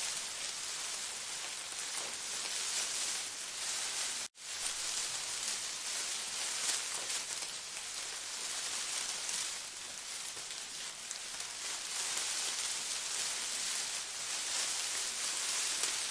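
A steady, dense hiss like rain, strongest in the upper range, that cuts out for a split second about four seconds in.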